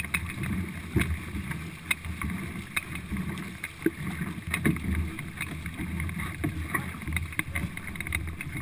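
Four-person stock canoe paddled hard at race pace: paddles catching the water and knocking about once a second, over a steady rush of water along the hull.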